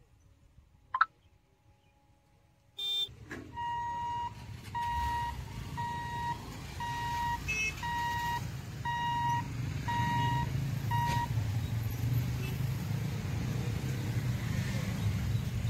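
Level-crossing boom barrier's warning beeper sounding about once a second while the boom lifts after the train has passed; it stops about eleven seconds in. Underneath, motorcycle engines run and pull away across the tracks.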